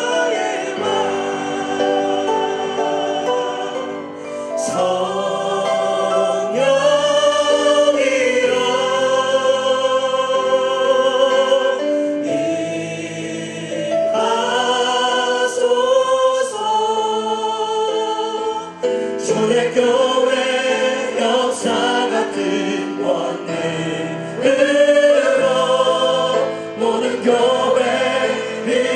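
Worship team of men's and women's voices singing a Korean praise song together in harmony, with sustained, vibrato-laden notes, over band accompaniment.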